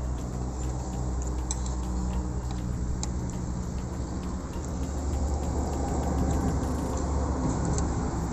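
A low, steady engine hum, growing a little louder after the middle, with a few faint clicks.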